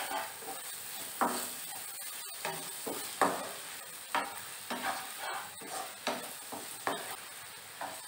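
Flat spatula stirring and scraping cluster beans around a nonstick kadhai, in irregular strokes about once or twice a second, over the light sizzle of the beans frying.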